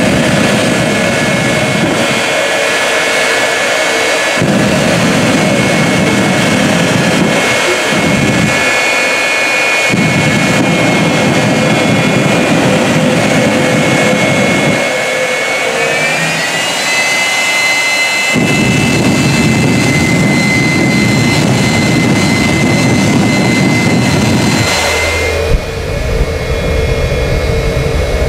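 General Electric J79 jet engine of the Hellfire Freightliner jet truck running in place with its afterburner flames lit: a loud, steady jet noise with a high whine that steps up in pitch about halfway through. Near the end the sound shifts to a heavier low rumble.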